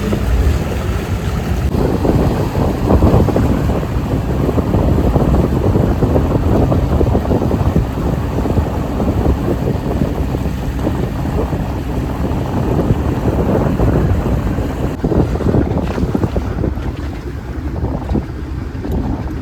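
Steady wind buffeting the microphone over the rushing noise of a moving motorboat on open water.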